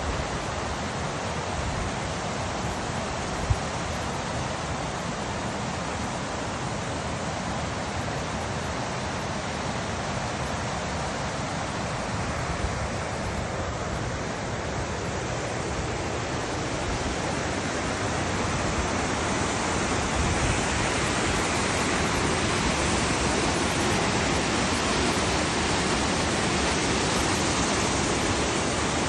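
Whangarei Falls, water pouring down into its pool as a steady rushing, growing a little louder about two-thirds of the way through. A single short knock a few seconds in.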